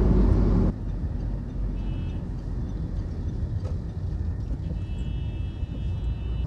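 Car cabin road noise while driving on a highway: a steady low rumble of engine and tyres. It is louder for the first moment and then drops abruptly. A faint high steady tone sounds briefly about two seconds in and again for the last couple of seconds.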